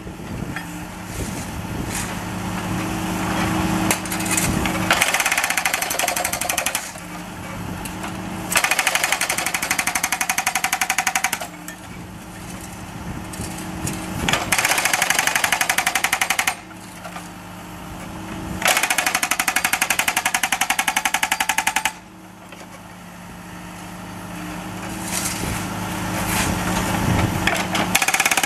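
Jackhammer with a chisel bit breaking up asphalt, running in about five spells of rapid hammering of a few seconds each. Between the spells a steady low hum carries on.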